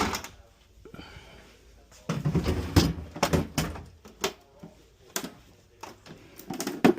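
Repeated knocks, clicks and rattles of hard parts being handled, with a dense cluster of heavier knocks about two to four seconds in.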